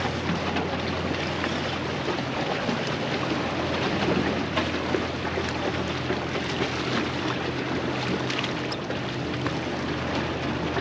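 Steady low hum of a motorboat engine out on the pass, over a constant wash of wind and water, with a few short sharp clicks around the middle.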